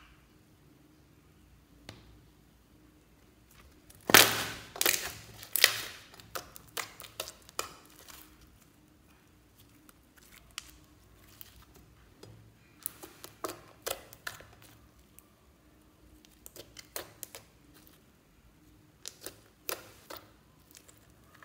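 Glossy pink slime being poked, stretched and pressed by hand, giving sharp sticky pops and clicks in irregular clusters. The loudest run comes about four to six seconds in.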